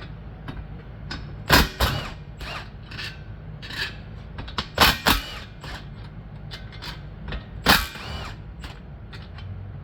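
Hand tools working on a small Briggs & Stratton engine's bolts and cover: several sharp metal clanks and knocks, a few with a short ring, over a steady low hum.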